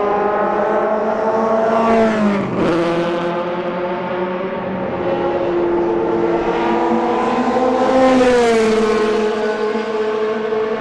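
Historic Formula 1 racing car engines at high revs passing at speed. One passes about two seconds in with a sharp drop in pitch, and another climbs in pitch and sweeps past around eight seconds in.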